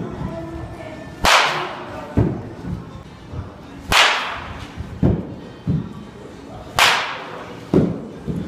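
Baseball bat hitting balls in a batting cage: three sharp cracks about three seconds apart, each with a short ringing tail and followed under a second later by a duller thud.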